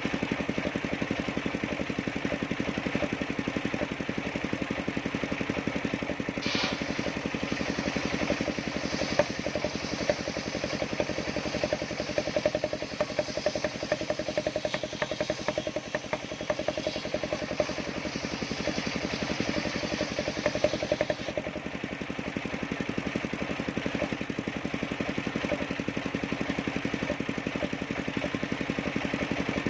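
Engine-driven circular sawmill running steadily. From about six seconds in until about twenty-one seconds, a harsher, higher hiss joins the engine as the blade cuts through the log, then stops suddenly, leaving the engine running alone.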